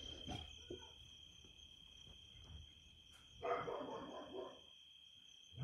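Crickets trilling steadily in the background, and about three and a half seconds in a dog gives one short vocalisation, about a second long, reacting to a noise outside.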